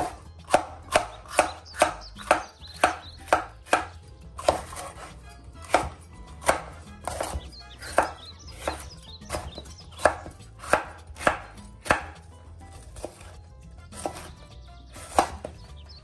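Chef's knife slicing and dicing crisp bell peppers on a bamboo cutting board: each cut ends in a crisp knock on the board. The cuts come in runs of about two to three a second, with short pauses between.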